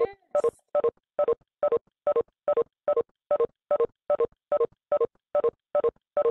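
A short electronic beep, a chord of several pitches, repeating evenly about two to three times a second from the video-conference call audio.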